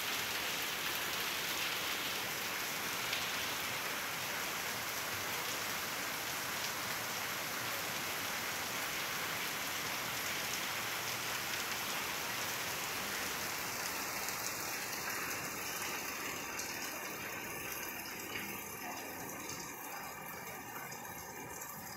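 Steady rain, with water leaking through the roof and splashing onto a wet tiled floor and metal waiting seats. The hiss thins out over the last several seconds.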